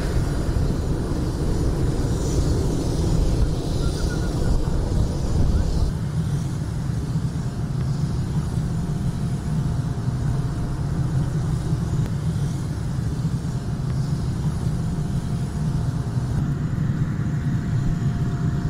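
Jet aircraft engines running on the flight line: a steady low rumble, with a faint steady whine joining about seven seconds in.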